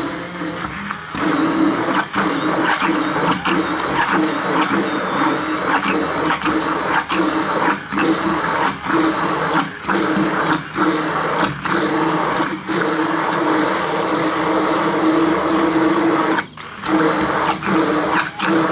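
Stick hand blender running in a wide-mouth quart glass jar, blending a thick garlic and olive-oil dressing with cilantro. A steady motor whine dips briefly every second or so and stops for a moment about sixteen seconds in.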